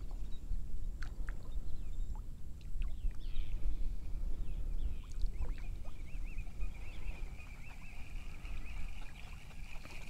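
Low wind rumble on the microphone around a kayak, with scattered small knocks and water trickles. From about three seconds in, a thin, wavering high tone runs on to the end.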